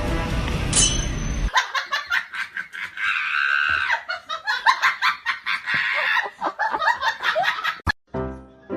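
Music that cuts off about a second and a half in, followed by about six seconds of rapid, high-pitched laughter.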